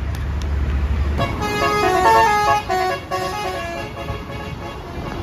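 Bus's Basuri telolet multi-tone air horn playing a tune of short stepped notes, starting about a second in, over a low engine rumble.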